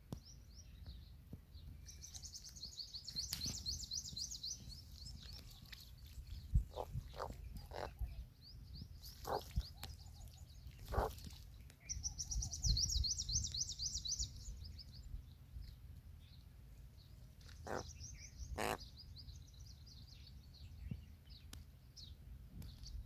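Birds calling outdoors: three bouts of rapid, high-pitched chirping trills, with a few short, sharp single calls in between, over a low background rumble.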